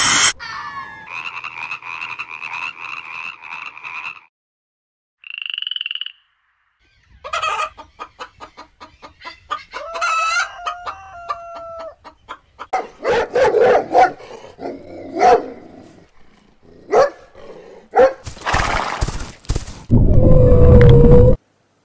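A run of short, different animal calls cut one after another, with brief silent gaps between them: a fast pulsing call first, then scattered calls, and a loud call near the end.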